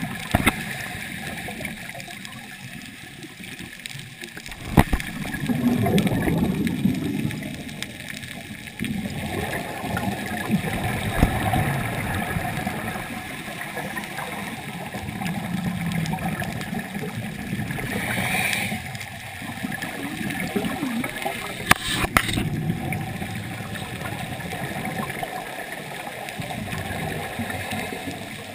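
Scuba divers breathing through their regulators underwater: bubbly, gurgling exhalations that swell and fade every few seconds, with a few sharp clicks.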